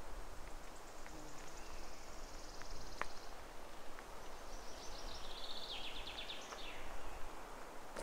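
Songbirds singing in the forest. A fast, high trill lasts about three seconds, then a second phrase of notes drops step by step in pitch and ends with a quick flourish. There is one sharp click about three seconds in.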